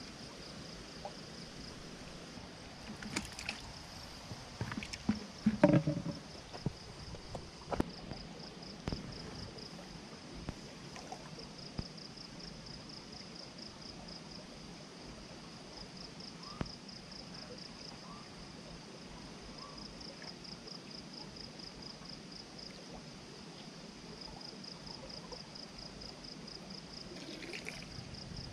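Flowing stream water with a steady, rapidly pulsing high-pitched tone over it. A few sharp knocks and handling noises from fishing gear come in the first third, the loudest about six seconds in.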